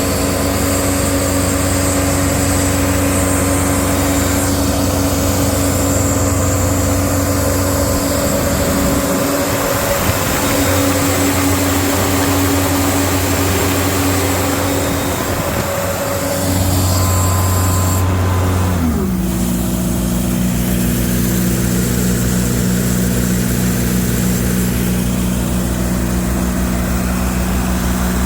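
The John Deere 4024T 2.4 L turbo diesel of a Sullivan 210Q portable air compressor runs steadily under load. Near the end a high hiss stops and the engine speed drops, settling into a slower steady run.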